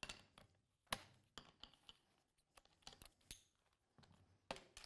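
Faint, scattered clicks and clinks of metal angle-grinder accessories being swapped, discs clicked onto and released from the X-LOCK grinder and a flange nut worked with a key; about eight short clicks spread over a few seconds, the sharpest about a second in.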